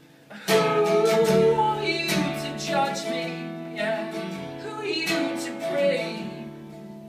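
A male singer's voice and strummed acoustic guitar performing a song live; the guitar and voice come in strongly about half a second in after a brief lull.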